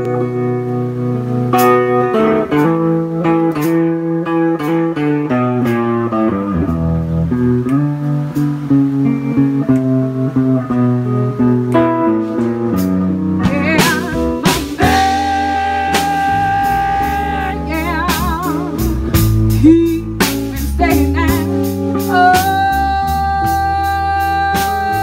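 Live blues band: electric guitar, electric bass and drum kit playing, with a woman's voice coming in about halfway through with long held sung notes.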